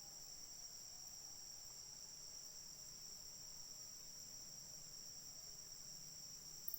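Faint, steady high-pitched insect chorus, an unbroken shrill trilling, with a brief sharp click near the end.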